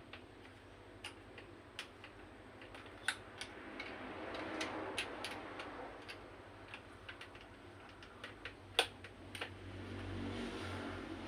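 Irregular light clicks and taps, as of small hard parts being handled, with a soft rustling swell about halfway through and again near the end.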